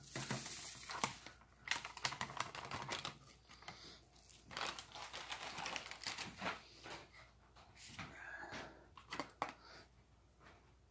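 Foil MRE ration pouches crinkling and rustling as they are handled, with irregular clicks and taps. The handling noise is busiest in the first nine seconds or so and thins out near the end.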